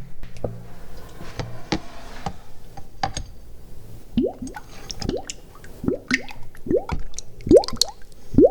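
Wet squelching and dripping from waterlogged, semi-fermented moss: scattered small clicks and pops, then from about four seconds in a run of short rising plops, like drops falling into water, about one every half second to second.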